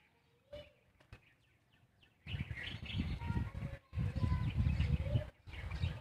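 Birds chirping lightly. About two seconds in, a loud rush of low, rumbling noise starts, breaks off briefly and runs on for about three seconds.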